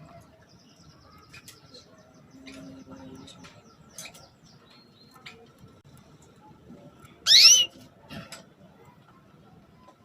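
Female domestic canary giving one loud, short, rising 'cuit' call about seven seconds in, amid faint scattered chirps and ticks.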